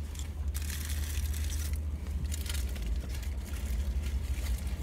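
Paper food wrapper rustling and crinkling in short bursts as it is handled, over a steady low hum.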